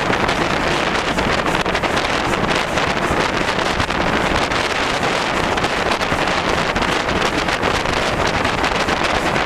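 Heavy, steady wind noise on a microphone held out from the cab of a running Ivatt steam tank locomotive, with the locomotive's running noise underneath.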